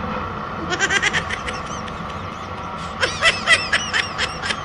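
Motorcycle running along a street, with two bursts of rapid, high-pitched chirping calls over it, about a second in and again from about three seconds.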